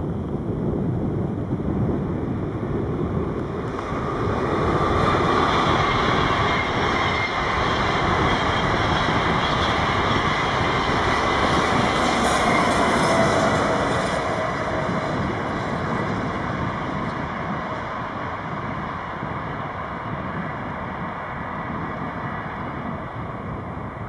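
A train passing on the line, its running noise swelling to a peak in the middle and then easing off, with a faint whine that slides down in pitch as it goes by.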